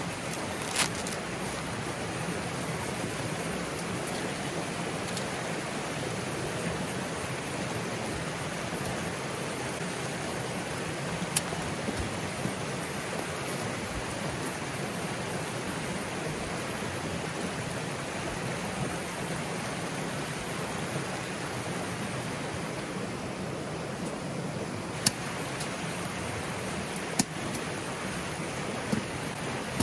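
Steady hiss of pouring rain and running water, broken a few times by short, sharp taps.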